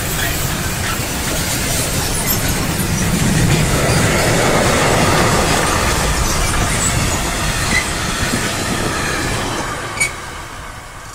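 Train rolling past on the rails, its wheels rumbling steadily. It is loudest a few seconds in and fades toward the end, with a sharp click shortly before it dies away.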